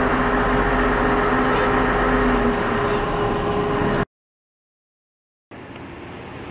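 Steady drone of the MV Quinsam car ferry's engines with rushing water from its wake, a low hum running through it. It cuts off abruptly about four seconds in, and after a second and a half of silence a fainter noise fades in near the end.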